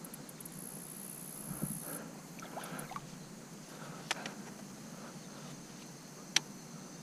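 Faint outdoor background with a few light clicks and knocks as a spinning rod and reel are handled and set down on a rock. The sharpest click comes near the end.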